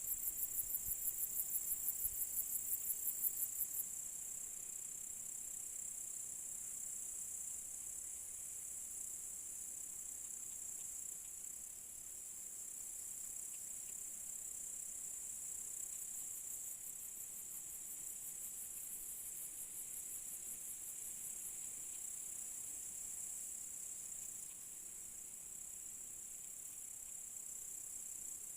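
Crickets chirping in a steady, high chorus. A nearer insect trills in quick pulses, about three or four a second, for the first four seconds, and a fainter trill comes in again around two-thirds of the way through.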